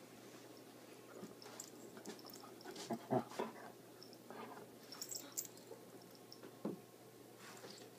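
A dog's soft play sounds as it mouths and nuzzles a kitten, with the bed covers rustling. A few short, louder noises come about three seconds in, around five seconds, and near seven.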